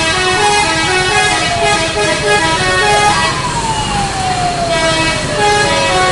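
A bus's 'telolet' multi-tone horn playing a quick tune of changing notes. A siren-like tone twice jumps up and then slides slowly down in pitch over a few seconds.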